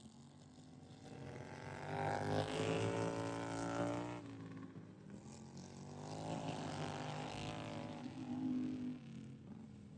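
Racing lawnmower engines going past on the track, twice: a first pass rising and cutting away about four seconds in, then a second, slightly quieter pass that fades near the end.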